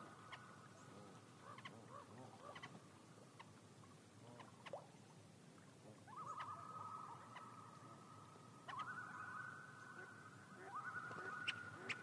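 Common loon calling: three long calls, each rising in at the start and then held on one pitch, about six, nine and eleven seconds in. Faint scattered ticks and chirps come before them.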